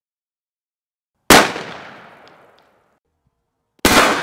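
Mossberg Sporting over-and-under shotgun fired twice with No. 1 buckshot, about two and a half seconds apart. The second shot comes near the end, and each loud report trails off over about a second.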